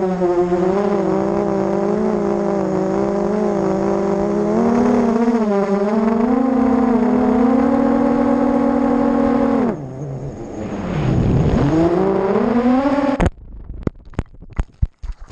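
A ZMR250-clone racing quadcopter's brushless motors (RCX2205 2300 kV on 4S) whining with their propellers, the pitch wavering with throttle. The pitch drops away about ten seconds in and climbs back, then the whine cuts off abruptly near the end as the quad crashes, with a string of sharp knocks and clatters as it tumbles through branches into the grass.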